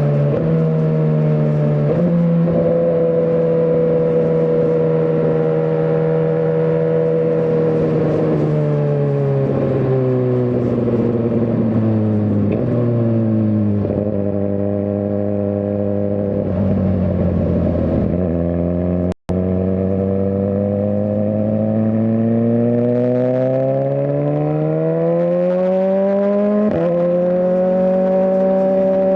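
Suzuki GSX-R1000R inline-four engine under way. The revs hold steady at first, then fall gradually for about ten seconds as the bike slows. After a split-second cut in the sound, the revs climb steadily again, with a shift near the end.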